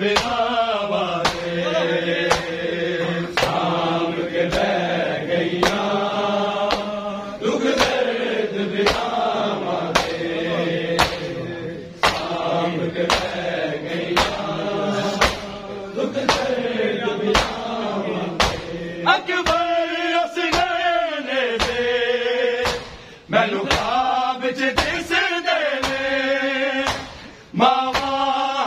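Men chanting a noha in unison while beating their chests in time (matam). A sharp hand slap comes about every two-thirds of a second under the chanting voices, which break off briefly a few times.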